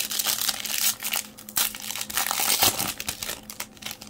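Plastic wrapper of a Topps baseball card pack crinkling as hands tear it open: a dense, crackly rustle lasting about four seconds.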